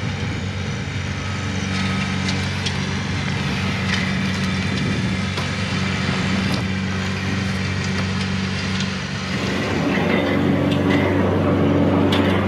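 TYM T264 compact tractor's diesel engine running at a steady speed while it pulls a rear finish mower through grass. About nine seconds in the sound turns louder and rougher, heard close up from the seat.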